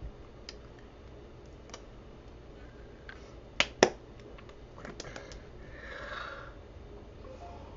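Hands and bracelets knocking together while signing: a few light taps, then two sharp slaps close together about three and a half seconds in. A few more light clicks follow, then a soft brushing rustle.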